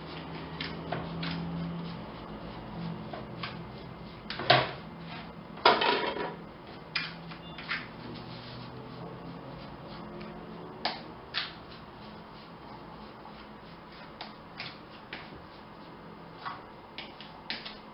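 Fork mashing and stirring cottage cheese with sugar in a small container: irregular scraping and light clicks of the fork against the container, with two louder knocks about four and a half and six seconds in.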